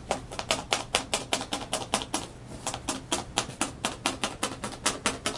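Felting needle jabbing rapidly into wool roving to tack it down onto the felting paper: a fast, even run of sharp clicks, about eight strokes a second.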